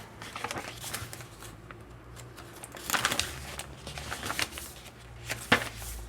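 Paper pages of a handmade journal booklet being turned and handled: soft rustles and small ticks, with louder rustles about three seconds in and near the end, over a steady low hum.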